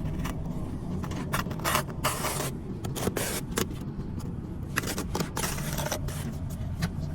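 A hand tool scraping across mortar in short, irregular strokes, a couple of them longer and drawn out, over a steady low rumble.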